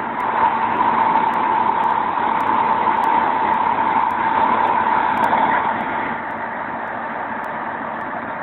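Heavy farm vehicle's engine running in mud, louder for about the first six seconds, then easing off.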